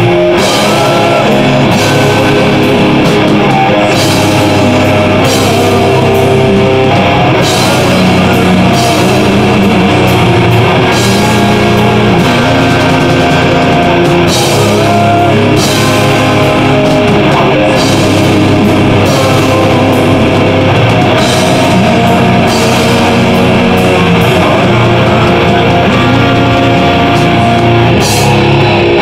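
Extreme progressive metal band playing live: electric guitars, bass guitar and drum kit, loud and dense, with repeated cymbal crashes.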